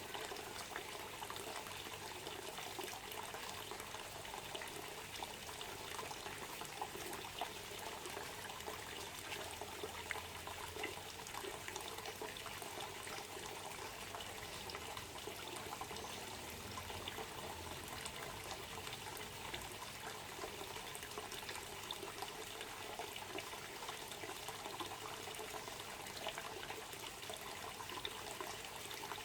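Water trickling and splashing steadily, a continuous fine patter.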